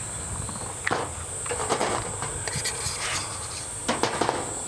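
A steady high-pitched insect chorus, crickets or similar, chirring throughout. Several light clicks and knocks sound over it, about a second in, near the middle and around four seconds in.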